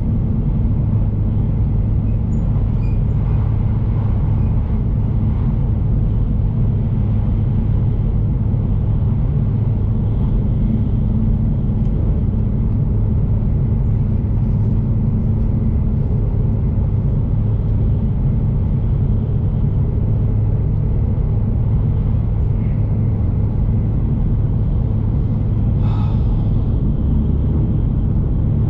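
Shinkansen bullet train running at speed: a steady, low rumble with no change in level. There is one brief click near the end.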